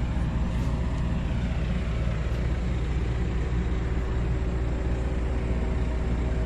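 Large diesel engine running at a steady idle: an even low rumble with a constant hum above it, no change in speed.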